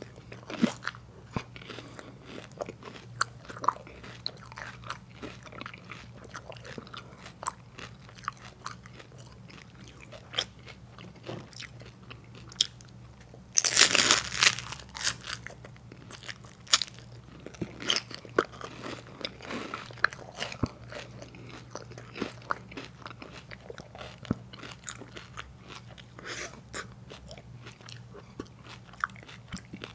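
Close-up eating sounds: biting and crunching wafer ice cream cones topped with soft serve, and chewing, with scattered small wet mouth clicks. A loud crunching bite comes about halfway through.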